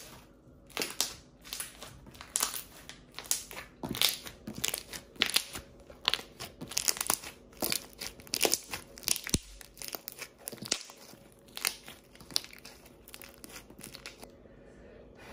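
Homemade pink slime squeezed and kneaded by hand against a countertop, giving irregular crackling pops and squelches, several a second.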